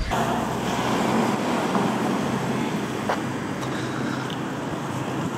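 Steady outdoor background noise: a constant rushing hum with a faint tap about three seconds in.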